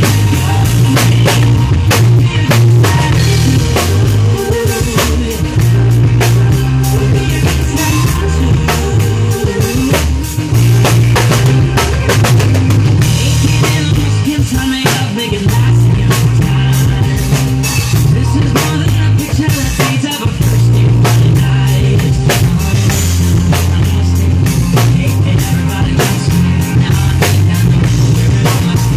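Acoustic drum kit played along to a recorded pop song: steady snare, bass drum and cymbal hits over the song's sustained bass line.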